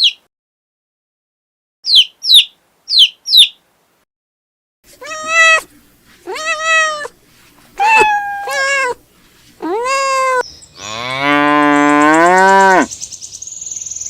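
A few quick high bird chirps, then a cat meowing five times, then one long, low cow moo that rises in pitch.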